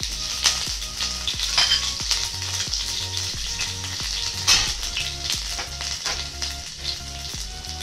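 Mustard seeds, chopped ginger and green chilli sizzling in hot oil in a steel kadhai: a steady hiss broken by sharp pops and crackles from the seeds. The loudest pops come about half a second in and again about four and a half seconds in.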